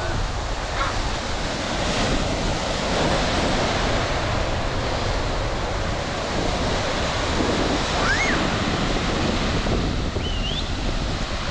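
Ocean surf breaking on the beach in a steady wash, with wind rushing over the microphone. Two brief high-pitched calls cut through, one about eight seconds in and one near the end.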